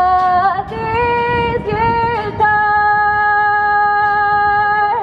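A young woman's solo singing voice with acoustic guitar accompaniment: a few short sung notes, then one long held note from about halfway through to the end.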